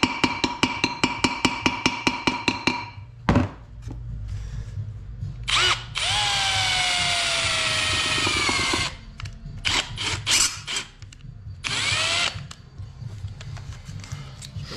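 A hammer taps quickly on a punch against a cast-iron Ford Model T cylinder head during a cold-metal stitching repair: about six ringing metal strikes a second, stopping after about three seconds with one heavier knock. Then a cordless drill bores into the cast iron. Its whine falls in pitch under load over a run of about three seconds, followed by a few short trigger blips and a brief spin-up near the end.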